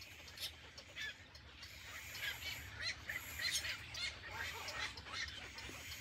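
Downy heron nestlings in their stick nest giving begging calls for food: many short calls in quick, irregular runs, busiest through the middle.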